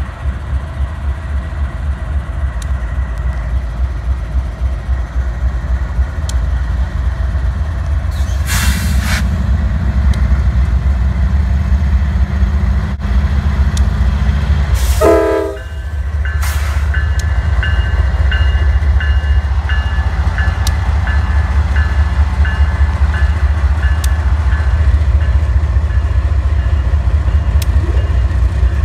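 Freight train passing close by behind Norfolk Southern GE Dash 9 diesel locomotives and two EMD GP-series diesels: a heavy, continuous low diesel rumble with rolling wheel noise. After a brief dip about halfway, an evenly spaced high ringing tick comes in about twice a second.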